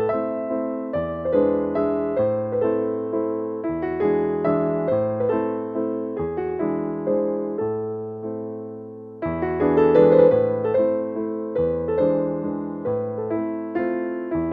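Background piano music: a gentle melody of struck notes that ring and fade, with low bass notes changing every second or two.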